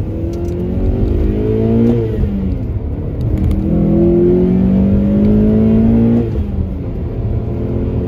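Hondata-tuned 2007 Acura TSX's naturally aspirated 2.4-litre i-VTEC four-cylinder, heard from inside the cabin, pulling hard through the gears of its six-speed manual. The revs climb for about two seconds, drop at an upshift, then climb again for a longer pull before dropping off about six seconds in.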